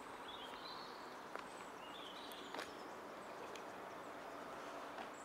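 Faint outdoor background with a few short bird chirps, about three in all, and two sharp clicks at about a second and a half and two and a half seconds in.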